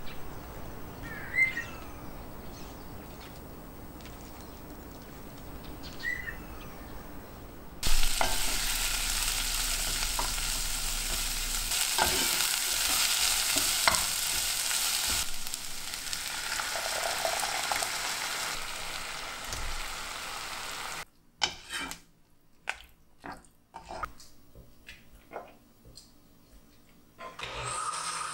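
Sliced onions sizzling in oil in a pot, stirred with a wooden spatula, with occasional taps of the spatula against the pot. The sizzling starts suddenly about a quarter of the way in and stops sharply later. It is preceded by a quieter stretch with two short bird chirps and followed by scattered clicks.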